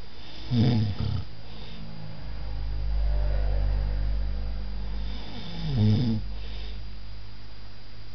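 A sleeping person snoring: two loud snores about five seconds apart, with a longer, lower, quieter breath between them.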